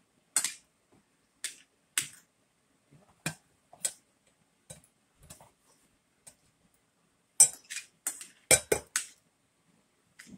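Metal spoon and fork clinking and scraping against a plate while eating, in irregular short clicks, with a quicker, louder run of clinks about three-quarters of the way through.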